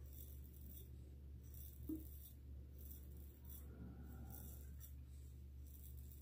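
Faint, short scrapes of a Gillette Black Beauty adjustable safety razor gliding over freshly rinsed skin, a stroke every half second to second, in a residual-slickness test of the shaving cream. A low steady hum sits underneath, with a soft knock about two seconds in.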